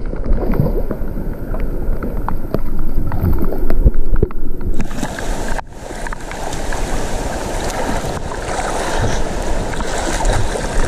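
White-water river rapids rushing, with wind buffeting the microphone; the rush turns hissier about five seconds in.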